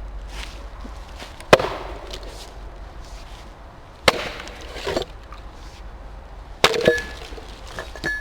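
Axe chopping wood: three sharp strikes about two and a half seconds apart, each followed by a short ring.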